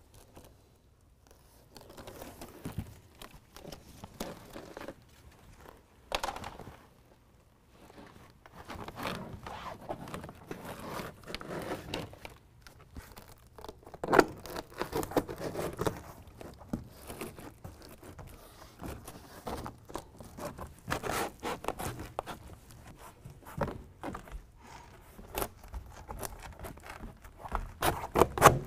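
Irregular rustling, crinkling and tearing as the backing is peeled off adhesive hook-and-loop strips and a carpet-like truck bed liner panel is pressed and scraped against the bed wall, with louder peaks about halfway through and near the end.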